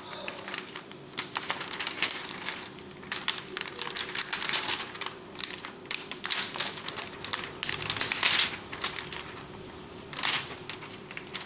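Thin clear plastic membrane sheets from a disassembled computer keyboard crinkling and crackling in irregular bursts as they are handled and lifted apart, louder about ten seconds in.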